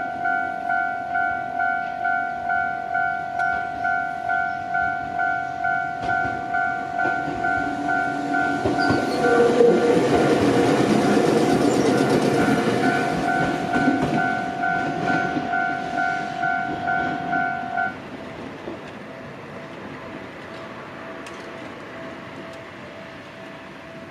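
Japanese level-crossing warning bell ringing fast, about two strokes a second, while a Gakunan Railway electric train runs past over the crossing, its wheels clattering on the rail joints; the train is loudest about ten to fourteen seconds in. The bell cuts off abruptly about three-quarters of the way through, once the train has cleared.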